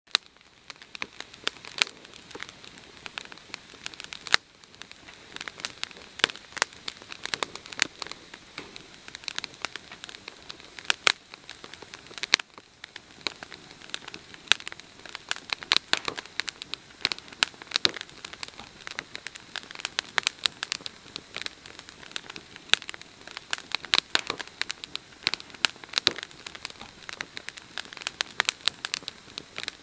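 Small fire of dry sticks stacked over a bed of rocks, crackling with many irregular sharp pops and snaps.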